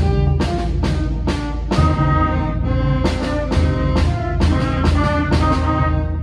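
School concert band of woodwinds, brass and drums playing a piece, with held notes over regular drum strokes.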